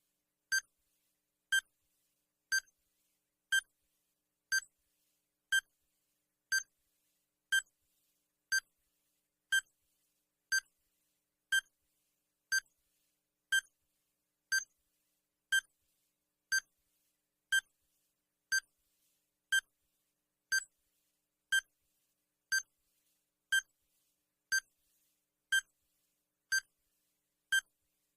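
Timer beep sound effect: one short, high electronic beep every second, evenly spaced, marking each second of the countdown.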